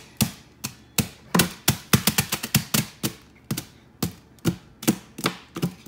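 A child's hands drumming on a kitchen countertop: quick, uneven taps and slaps, about three or four a second.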